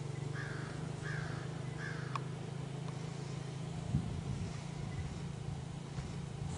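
A crow cawing three times in quick succession, over a steady low hum. A click follows about two seconds in, and a thump about four seconds in.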